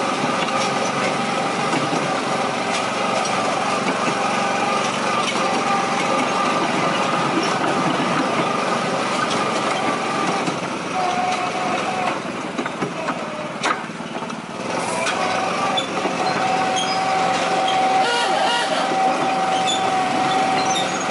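Small engine of a 7¼-inch gauge miniature railway locomotive running steadily as the train rolls along, with a steady whine over it. It eases off about twelve seconds in, a sharp click sounds near fourteen seconds, and it picks up again soon after.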